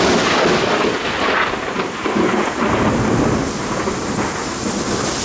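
A sudden thunderclap right at the start, rumbling on for two or three seconds, over the steady hiss of heavy rain pouring down.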